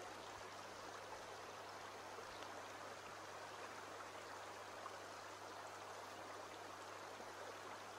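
Shallow stream flowing over stones: a faint, steady rush of water, with a low steady hum underneath.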